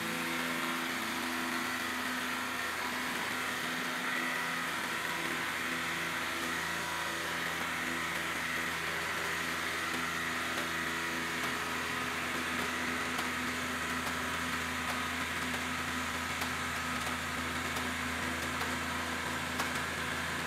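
Hydraulic press pump motor running with a steady hum as the ram slowly squashes a red-hot sledgehammer head, with faint scattered ticks.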